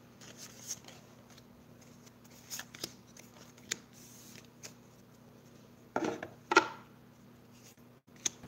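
Pokémon trading cards being handled and laid down: scattered soft clicks and snaps of card stock, with two louder rustles about six seconds in, over a faint steady low hum.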